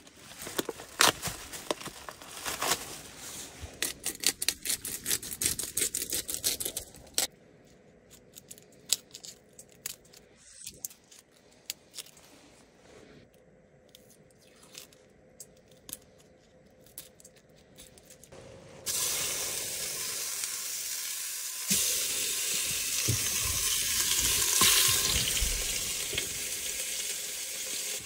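Plastic packaging around raw short ribs being torn open and crinkled, then scattered light clicks and knocks of peeling shallots on a wooden cutting board. About two-thirds of the way in, a steady loud hiss sets in suddenly and carries on.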